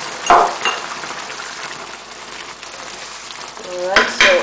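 Curry sauce simmering in a wok, a steady bubbling sizzle, with a short knock about a third of a second in. Near the end a wooden spatula clicks and scrapes against the wok, along with a brief voice sound.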